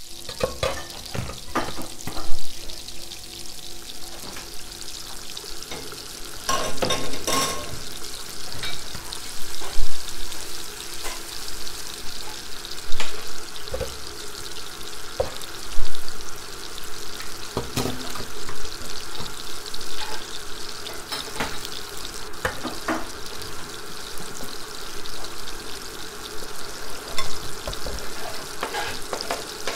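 Food sizzling in hot oil in a frying pan, a steady hiss, with stirring: a utensil scrapes and knocks against the pan every few seconds, the sharpest knocks standing out above the hiss.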